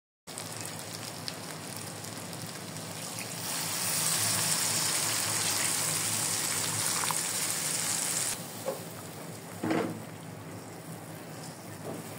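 Beef and potato curry sizzling in a non-stick frying pan. About three seconds in, water is poured into the hot pan and the hiss grows louder for about five seconds. It then settles back to a steady bubbling sizzle, with a couple of light knocks.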